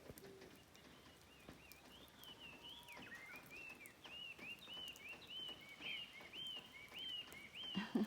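Small songbirds singing: a faint series of repeated high, arching notes, about two a second, beginning about three seconds in after a few shorter high notes.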